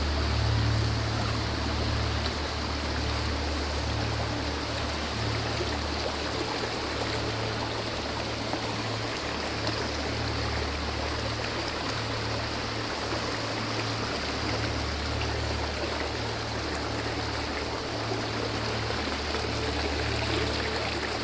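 Forest river flowing: a steady rush of water running over stones, with a low rumble underneath.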